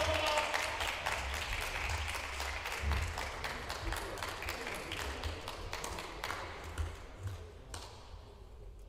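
Applause from a small crowd of spectators at the end of a table tennis match. The clapping is strongest at first and dies away near the end.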